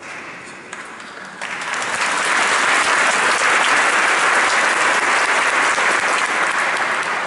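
Audience applauding. The clapping swells about a second and a half in, holds loud and steady, and eases slightly near the end.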